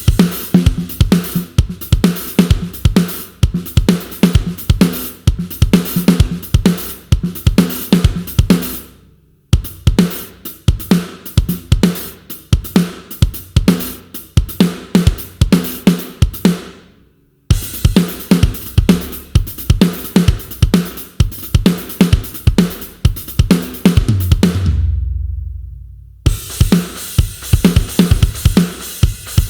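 Sampled aggressive rock drum kit from the GetGood Drums One Kit Wonder Aggressive Rock Kontakt library, playing a run of separate grooves of kick, snare, hi-hat and cymbals, with short breaks about 9 and 17 seconds in. Near the end a low booming hit rings out for about a second and a half, then a new, cymbal-heavy groove starts.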